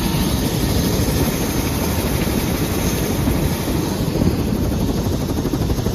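Loud, steady drone of a small aircraft in flight, with a fast pulsing beat from the blades.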